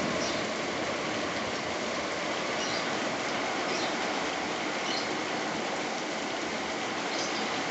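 Heavy rain falling steadily, a constant dense hiss.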